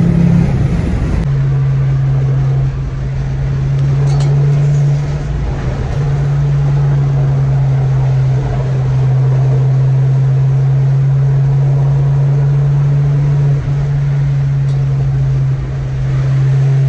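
Straight-piped Ford Focus ST's exhaust droning at a steady pitch while cruising, heard from inside the cabin over road noise.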